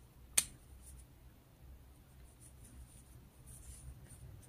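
Faint scratching and rustling of a 3.5 mm metal crochet hook pulling combed cotton yarn through stitches, with one sharp click a little under half a second in.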